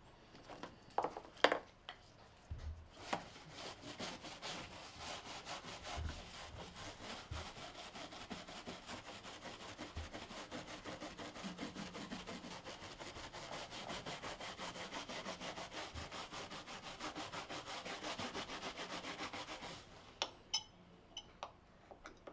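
Fast, rhythmic back-and-forth rubbing strokes, like scrubbing or hand-sawing, several strokes a second, starting about three seconds in and stopping shortly before the end. A few light taps and clicks come before and after.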